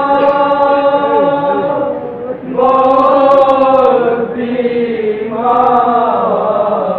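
Male voices chanting a nauha, a Shia lament, in long held lines with short breaks between them.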